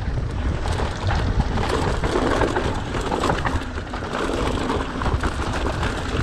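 Mountain bike rolling fast down a dirt singletrack: tyres crunching over the dirt and the bike rattling over bumps, under heavy wind buffeting on the microphone.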